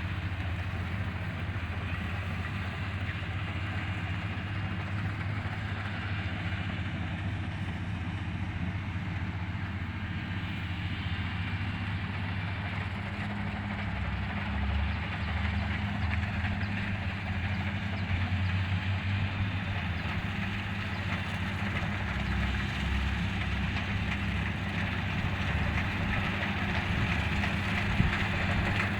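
Kubota DC-35 combine harvester running steadily with a low engine hum and machinery noise, growing a little louder about halfway through.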